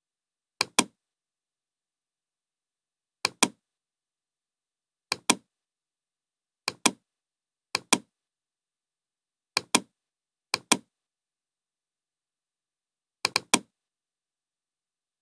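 Computer mouse clicks, each a quick double click, seven of them at irregular intervals of one to three seconds, with dead silence between.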